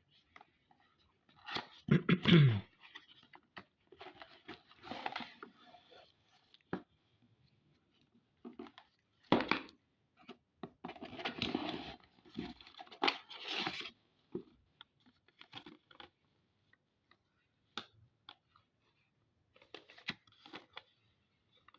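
Packaging being torn open and handled: irregular bursts of tearing and crinkling, with sharp clicks in between, loudest near the start and again about halfway through.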